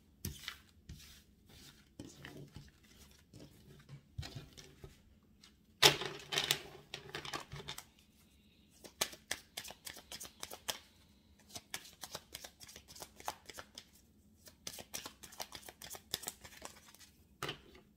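Tarot cards being swept together across a wooden tabletop and then shuffled by hand: a run of quick papery clicks and rustles, with one louder burst about six seconds in and a dense stretch of rapid clicks near the end.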